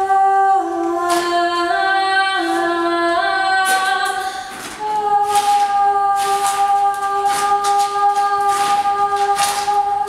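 Wordless female voice singing a cappella: several short notes stepping up and down, then one long held note from about five seconds in.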